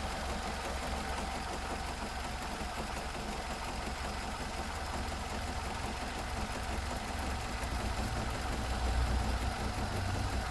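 Nissan X-Trail T31's QR25 2.5-litre four-cylinder petrol engine idling warm and steady, running with extraneous noises that the owner regards as abnormal. The low rumble grows a little louder near the end.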